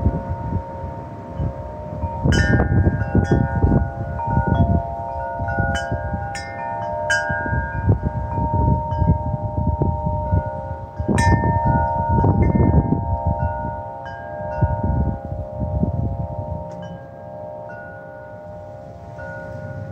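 Wind chimes ringing in gusty wind: several tuned notes struck in clusters and left to ring on, over gusts of wind rushing underneath. The strikes and gusts thin out after about sixteen seconds.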